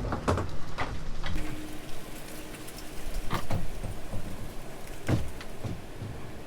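Plastic bag crinkling and rustling as engine parts are bagged, with scattered light clicks and knocks.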